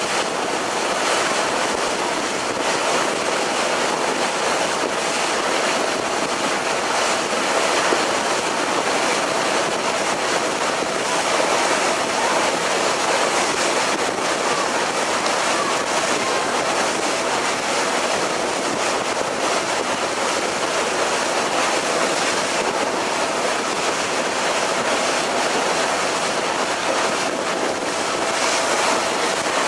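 Steady rush of water and wind heard from aboard a moving passenger boat, with a faint steady engine hum underneath.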